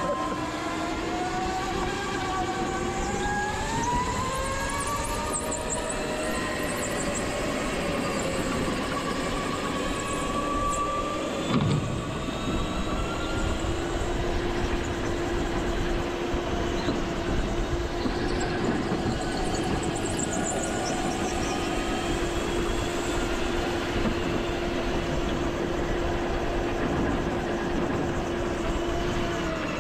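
Go-kart engine running hard through a race, its pitch rising and falling with the throttle in the first half, then holding one steady high note for the rest. A brief knock about twelve seconds in.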